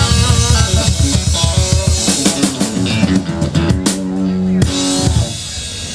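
A live country-rock band plays the closing bars of the song on drums and guitars. There is a flurry of drum and cymbal hits, then a final held chord that stops about five seconds in.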